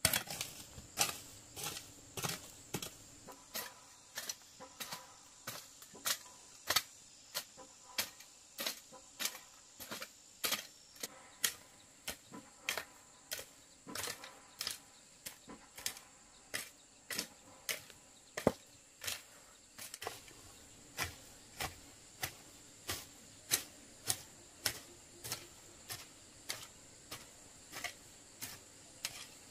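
Sharp clicks repeating about twice a second, fairly regular, over a steady high-pitched insect drone.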